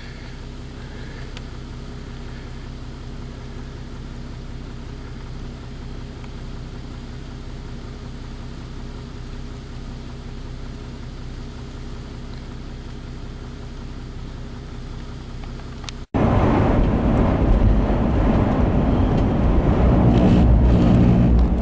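Car driving along a road: a steady engine and road hum, then, after a sudden cut about 16 seconds in, a much louder rough rushing noise with a heavy low rumble.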